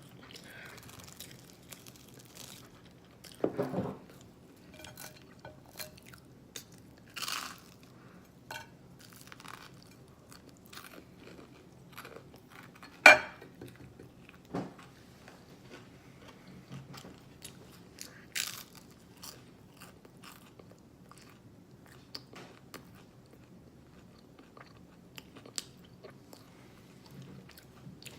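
A person chewing and lip-smacking while eating waffles with syrup, in irregular short smacks and clicks. There is one sharp click about halfway through.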